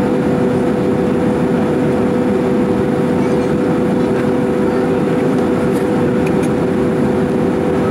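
Airbus A310 cabin noise in flight: the steady rush of engines and airflow with a constant droning hum, heard from inside the passenger cabin.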